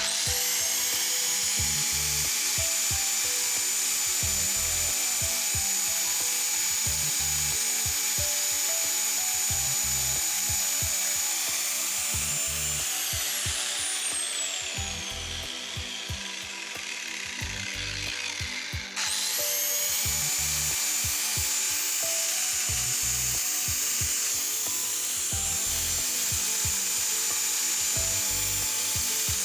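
Black and Decker grinder grinding the end of a wheel bolt held in a vise, with a steady high whine over the grinding noise. About 12 seconds in it is switched off and the whine falls away as it spins down. At about 19 seconds it starts again and runs back up to speed.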